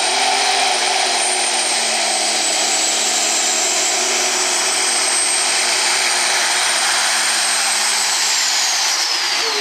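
Altered Peterbilt 379 semi truck's diesel engine running at full throttle under heavy load, with a loud high turbocharger whistle over the engine. Near the end the whistle and the engine both fall in pitch as the throttle comes off.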